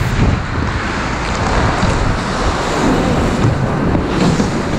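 Wind buffeting a helmet-mounted action camera's microphone as an ice hockey player skates hard, with skate blades scraping the ice. A knock comes near the end.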